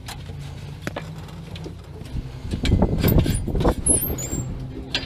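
Irregular knocks, bumps and rustling of body and clothing against a Legend race car's cockpit as the driver moves about to climb out, bunched together about two to four seconds in, over a steady low engine hum.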